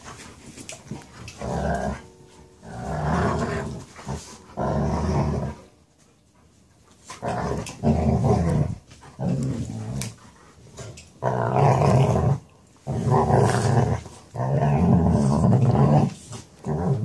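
Two Native American Indian Dogs play-wrestling, growling in repeated grumbly spells of a second or two with short breaks between. There is a longer lull about six seconds in. These are play-fight growls, not a real fight.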